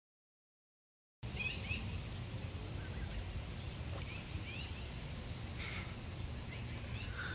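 About a second of silence, then Canada goose goslings peeping: short, high, rising peeps scattered over a steady low outdoor rumble.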